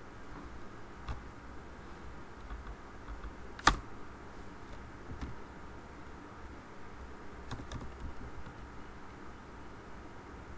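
Typing on a computer keyboard: a few scattered keystrokes, with one much louder click about a third of the way through.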